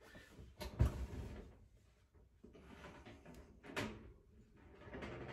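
Kitchen handling clunks as an oven is opened and a baking dish of potatoes taken out: a sharp knock about a second in and another clunk near four seconds in, with low rustling between them.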